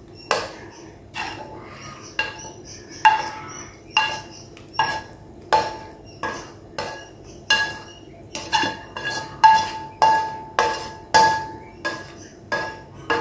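Metal spatula scraping and knocking against a metal wok, a ringing clank about one and a half times a second, some twenty strokes, as saucy stir-fry is pushed out of the pan onto a plate.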